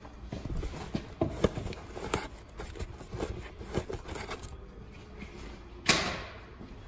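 A microfibre cloth wiping and rubbing metal shavings off freshly drilled holes in sheet-metal bodywork: a run of light scrapes, rustles and small clicks, then a single sharp knock about six seconds in.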